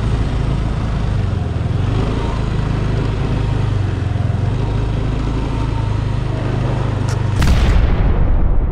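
Motor scooter engine running steadily while riding, with wind and road noise. About seven seconds in, a hand bumps and covers the camera, giving a sudden loud thump and rumbling handling noise.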